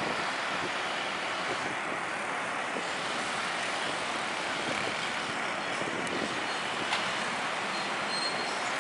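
Airliner's engines running, a steady rushing noise that holds level throughout.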